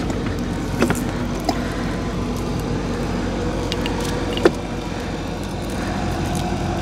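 Small river boat's engine running steadily, with a few short sharp knocks over it, the loudest about four and a half seconds in.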